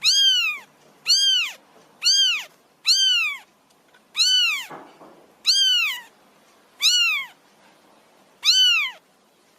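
Feral kitten meowing repeatedly to beg for food: eight high-pitched meows, each rising then falling in pitch, about one every second.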